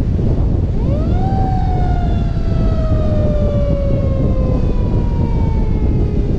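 A fire rescue truck's mechanical siren winds up about a second in, its pitch rising quickly, then falling slowly and steadily as it coasts down. Heavy wind and road noise on the roof-mounted microphone at highway speed run underneath.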